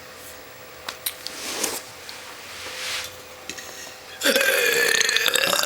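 A woman belching: one long pitched burp of about a second and a half, starting near the end, the loudest sound here. Before it come a few faint clicks and two soft breathy swells.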